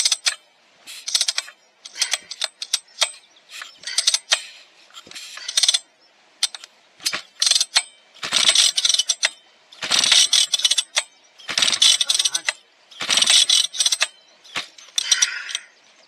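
Husqvarna 1100 chainsaw's recoil starter being pulled again and again, about a dozen rattling pulls, the engine turning over without catching. The saw will not fire because its fuel tank is empty.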